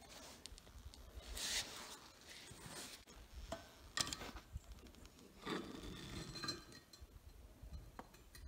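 Faint clinks and scrapes of steel tongs against a steel ingot mould and plate, with a sharp clink about four seconds in.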